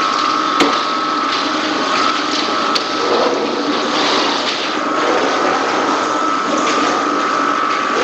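Processing machinery running steadily, with a constant whine, a hiss like running water and a few sharp clicks.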